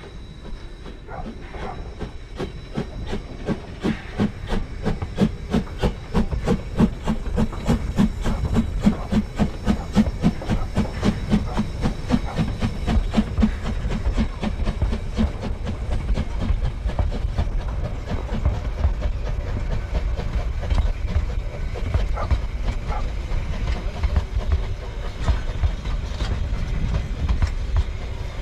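Narrow-gauge steam locomotive working hard, its exhaust chuffing in a quick, even beat over the rumble of the train. The chuffs grow louder over the first dozen seconds, then fade away, leaving the steady rumble of the rolling train.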